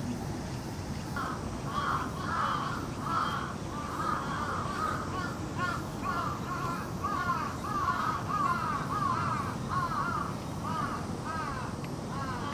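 A bird calling over and over: a long series of short arched calls, about two a second, over a steady low outdoor rumble.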